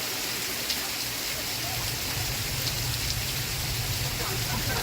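Steady rainfall, an even hiss of rain on a surface. A low hum joins underneath about a second and a half in.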